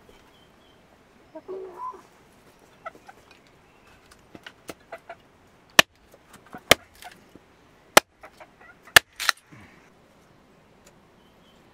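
A large knife blade striking and splitting firewood into kindling: a string of sharp knocks, the loudest four or five coming about a second apart in the second half. A chicken clucks briefly about a second and a half in.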